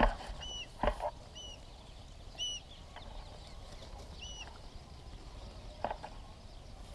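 A bird repeats a short chirp four times, a second or two apart, over faint outdoor background noise. A few short thumps also sound, the loudest right at the start and another about a second in.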